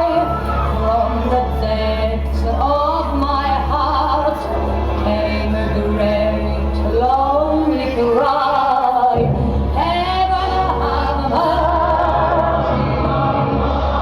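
A choir singing, women's and men's voices together, with a steady low hum underneath.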